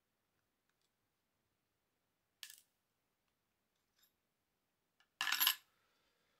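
The DRO read head's cover being dropped into a clear plastic parts container, landing with a short clatter near the end. A smaller, brief rattle comes about two and a half seconds in.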